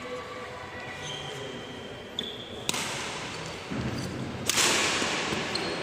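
Badminton rally: two sharp racket hits on the shuttlecock about two seconds apart, each followed by a rush of noise, with short high shoe squeaks and footfalls on the court mat, echoing in a large hall.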